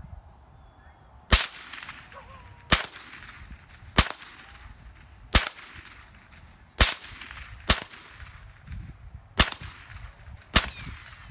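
Semi-automatic .22 rifle firing eight single shots at a steady pace, about one every one to one and a half seconds, each a sharp crack.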